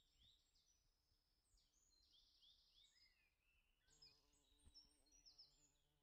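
Faint birdsong: short chirping notes repeated over and over. About four seconds in, the low, steady wing buzz of a carpenter bee joins in.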